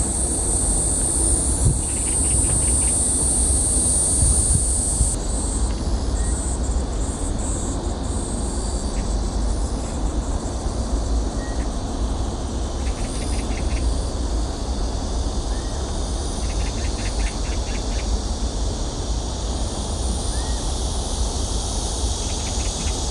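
Outdoor park ambience: a high-pitched insect buzz, loudest for the first five seconds, with short trains of rapid ticking now and then, over a steady low rumble.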